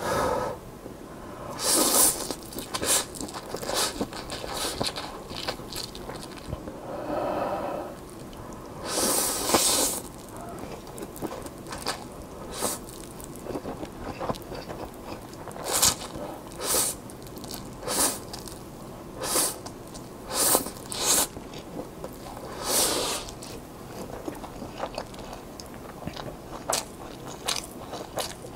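Close-miked slurping and chewing of Peyang instant yakisoba noodles: a few longer loud slurps, the biggest about nine to ten seconds in, with many short wet chewing clicks and lip smacks between them.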